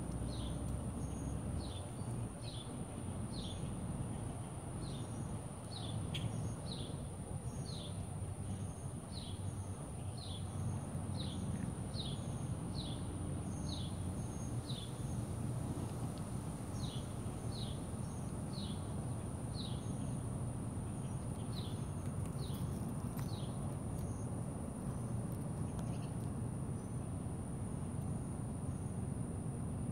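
Outdoor ambience: a bird repeats a short falling chirp about once a second, stopping a few seconds before the end, over a steady high-pitched whine and a low rumble of background noise.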